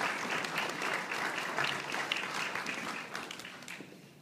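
Dinner audience applauding, the clapping dying away near the end.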